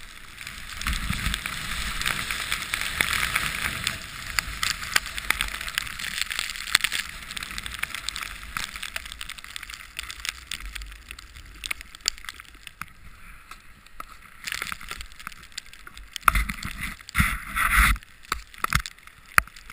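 Snowboard sliding through deep powder snow: a steady rushing hiss of snow spraying up, broken by many small knocks and a cluster of louder thumps near the end.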